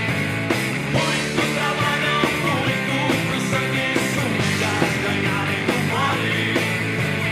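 Rock band playing: electric guitar over bass and a steady drum beat, with bending guitar lines.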